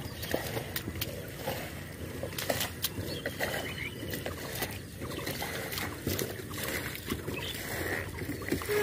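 Irregular splashing and sloshing of shallow muddy water as bare feet and hands move through a flooded rice field after a catfish.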